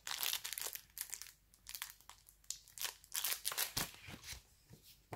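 Clear plastic film crinkling in irregular bursts as a cellophane-wrapped notepad is handled, with a couple of soft knocks about four seconds in as it is set down.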